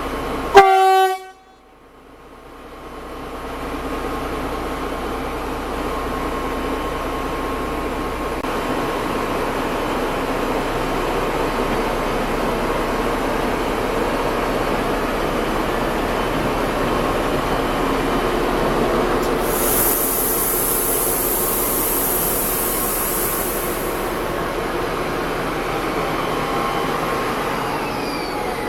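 A short, loud train horn blast, then a diesel locomotive running steadily as a train gets under way, with a burst of high hissing near the middle.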